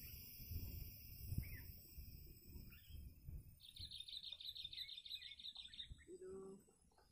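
Songbirds calling faintly: a few short chirps, then a fast trill of high notes lasting about two seconds, midway through. A low rumble runs underneath.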